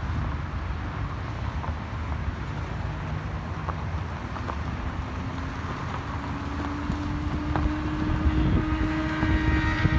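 Road traffic with a steady low rumble; about halfway through, a vehicle engine's drone comes in and grows louder toward the end as it approaches.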